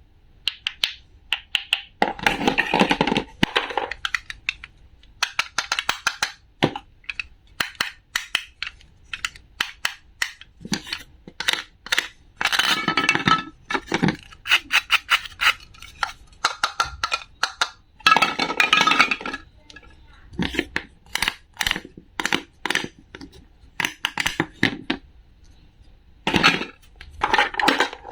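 A quick, uneven run of sharp clicks and clinks from small hard objects being handled, broken by several longer, noisy handling sounds, each a second or two long.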